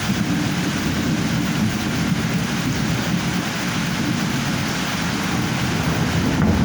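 Thunderstorm rain and wind making a steady, unbroken rushing noise.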